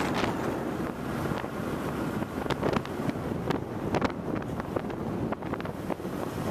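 Wind buffeting the microphone in uneven gusts, over the steady running noise of a vehicle driving along a paved road.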